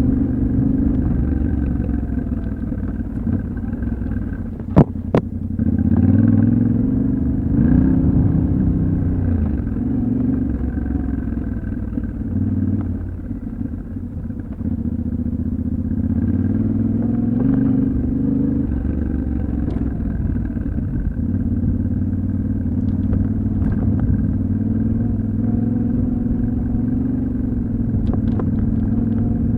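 Yamaha Ténéré 700's 689 cc parallel-twin engine running under riding load off-road, revs rising and falling with the throttle. A sharp knock about five seconds in, the loudest moment, and a few lighter clicks later.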